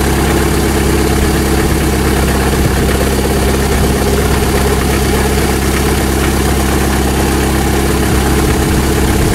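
Lada Priora engine idling steadily, its alternator drive belt removed and the timing-belt cover off. The timing-belt idler and tensioner rollers are running with no fault noise and are judged in excellent condition.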